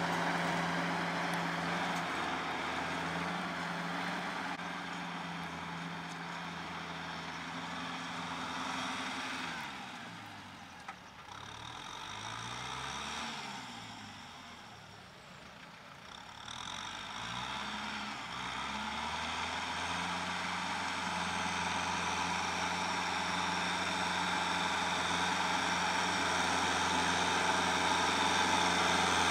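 Kubota M6040 tractor's four-cylinder diesel engine running steadily under load while it pulls a rotary tiller through a field. The engine grows fainter through the middle, with a sliding shift in its tone, and then louder and steady near the end as the tractor comes toward the listener.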